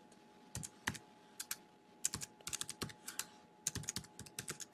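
Typing on a computer keyboard: irregular keystrokes, a few scattered ones at first, then a quicker run from about two seconds in.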